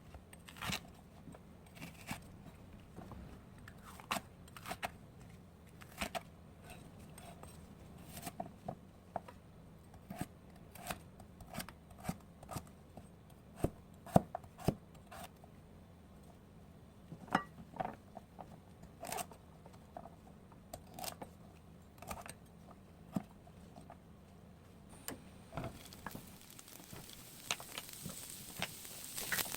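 Food being cut by hand in a kitchen: irregular sharp cutting clicks, about one or two a second, some with a light ring. A soft hiss builds near the end.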